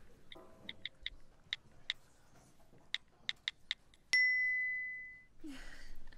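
Smartphone keyboard clicks, about a dozen quick taps as a text is typed, then a single bright message chime about four seconds in that rings out and fades over about a second: the reply being sent.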